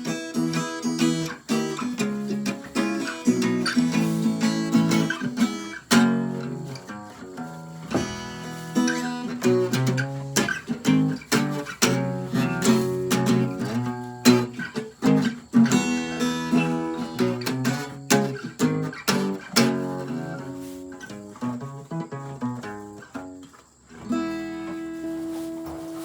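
Acoustic guitar played without vocals, strummed and picked chords with sharp attacks. Near the end the playing stops and a last chord is left to ring.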